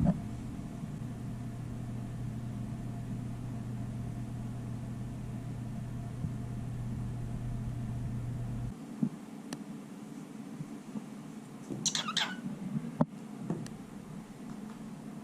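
A steady low hum that cuts off abruptly about nine seconds in, then a short, wavering, high-pitched animal call and a sharp click near the end.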